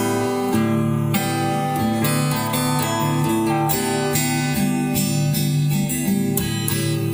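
Acoustic guitar strummed in a steady rhythm, an instrumental passage of a song without singing.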